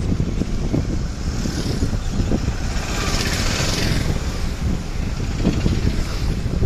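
Wind buffeting the microphone over the rumble of a moving vehicle riding along a road, with a swell of hiss about three seconds in as traffic passes close by.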